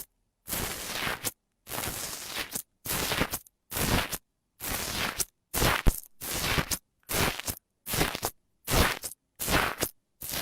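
Slime being pressed and squished by hand in a series of short strokes, about one a second, with dead silence between them.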